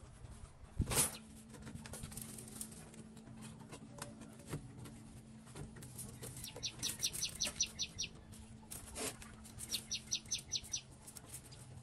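Light clicks and scrapes of wire and chain-link mesh being handled against a concrete block wall, with a sharp knock about a second in, over a low steady hum. Twice, a small bird gives a rapid run of high chip notes, about eight a second.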